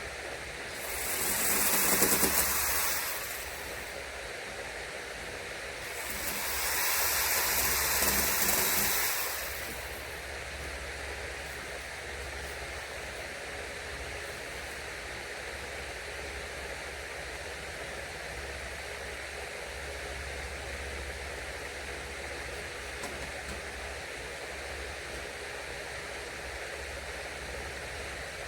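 Steady outdoor background hiss, with two louder rushing swells of noise, each about three seconds long, that rise and fade gradually about a second in and again about six seconds in.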